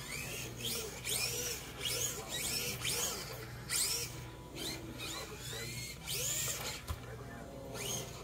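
Axial SCX24 Deadbolt micro RC crawler's electric motor and gears whining in about eight short throttle bursts, the pitch rising and falling with each burst as it drives over carpet.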